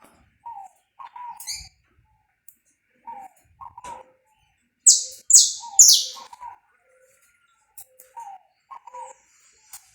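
Saffron finch (canário-da-terra) singing: three loud, high chirps in quick succession about five seconds in, among softer, lower short notes that come in pairs roughly every second.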